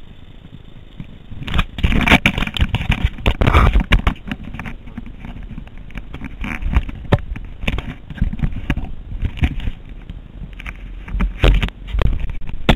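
Handling noise from a small onboard camera being repositioned on the dashboard: irregular scraping, rubbing and knocks on its microphone, loudest about two to four seconds in and again near the end.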